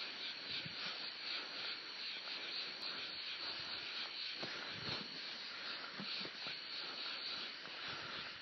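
Night insects chirping in a dense, steady chorus of fast high-pitched pulses.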